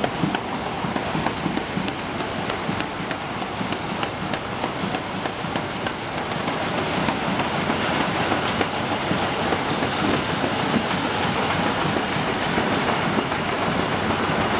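Automatic folder gluer for corrugated carton blanks running: a steady mechanical clatter of belts and rollers with many fast ticks over a constant hiss, a little louder from about halfway through.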